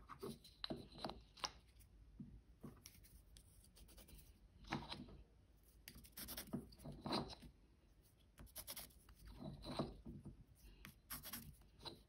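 Pencil lead scratching across the end grain of a black locust pen blank in several short strokes, drawn against a metal center-finder square to mark corner-to-corner lines, with light clicks as the square and blank are handled. Quiet throughout.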